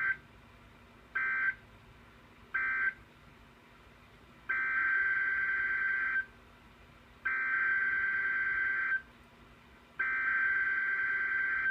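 NOAA Weather Radio SAME digital data bursts, a raspy two-tone warble. Three short end-of-message bursts close the warning, then three longer header bursts announce the next alert.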